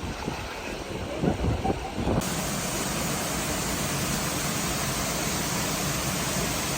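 Rushing water, starting abruptly about two seconds in and then running steady and even. Before it come a few faint knocks and rustles.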